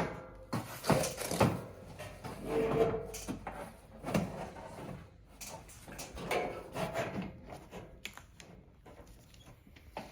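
Handling noise of parts being fitted together: scattered knocks, clicks and scrapes, irregular throughout.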